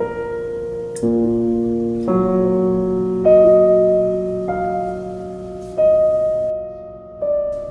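Background piano music: slow, sustained notes and chords, a new one struck about once a second.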